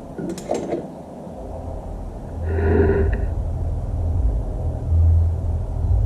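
Metal lathe: a few mechanical clicks, then the machine starts up and runs with a steady low hum.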